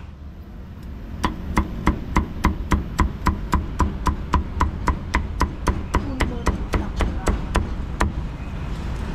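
Meat cleaver chopping crispy roast pork belly on a round wooden chopping block. About two dozen sharp, evenly paced chops, three to four a second, start about a second in and stop about eight seconds in.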